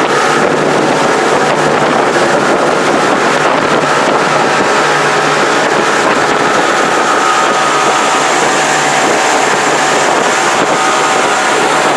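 Motorboat engine running at a steady pitch, with wind on the microphone.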